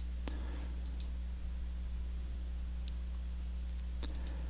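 Computer mouse clicking a few times, sharply about a quarter second in and twice just after four seconds, over a steady low hum.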